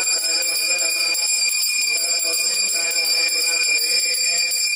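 Puja bell ringing continuously with a steady, high, metallic ring.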